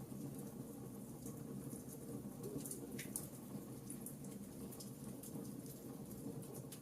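Campfire burning with irregular sharp crackles and pops over a steady low rumble, one stronger pop about three seconds in.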